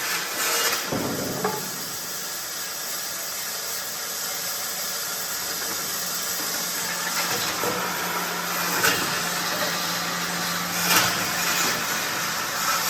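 Wood pallet dismantling machine running with a steady mechanical noise. A low motor hum comes in through the middle and a few sharp knocks stand out.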